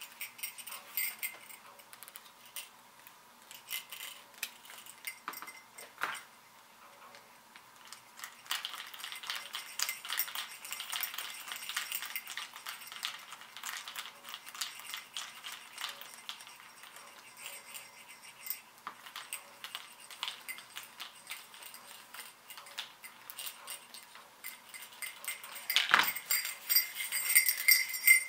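Small metallic clicks and rattles of brass hardware being handled and a brass screw post being screwed through a leather strap to fasten a brass jingle bell. Near the end the bell is picked up with the strap and jingles louder, with one sharper knock.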